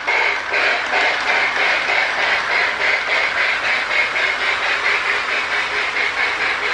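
Marx Sound-O-Power tender on a toy steam locomotive making a quick, even chuffing rhythm of several chuffs a second as the train runs.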